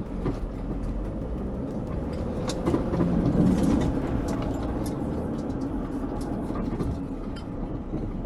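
Mercedes Sprinter van crawling over rough off-road ground, heard from inside the cabin: a steady low engine and road rumble with scattered knocks and rattles from the body and load, a little louder about three seconds in.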